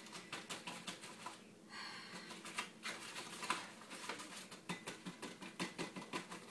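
Light, irregular clicking and tapping, several clicks a second, with a short lull about two seconds in.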